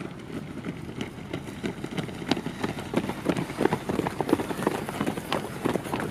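Rapid, overlapping footfalls of a large pack of runners on a dirt track, louder in the middle as the group passes close by.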